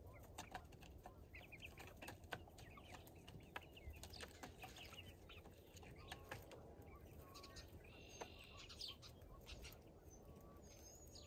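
Faint clucking and short calls from a small flock of hens, with scattered light clicks, and one clearer call about eight seconds in.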